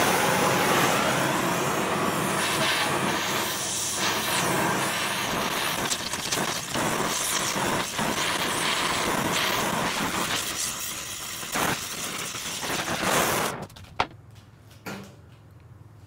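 Oxy-fuel torch flame hissing steadily as it heats a cracked cast-iron wheel while bronze brazing rod is fed into the seam. The hiss stops suddenly near the end when the torch is shut off, followed by a few light clicks.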